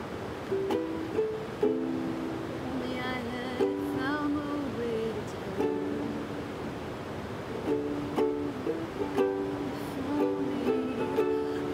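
Ukulele playing a chord pattern of repeated plucked notes without singing, an instrumental passage of a song, over the steady rush of river water.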